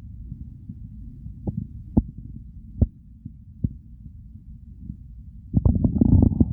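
Stomach and bowel sounds picked up close against the belly: a low steady rumble with a few scattered sharp gurgles, then a louder bout of gurgling setting in near the end.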